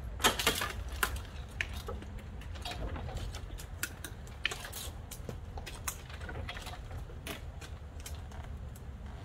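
Irregular clicks and knocks from a wooden ladder creaking and knocking under a climber's steps, the loudest cluster about a third of a second in, over a steady low rumble.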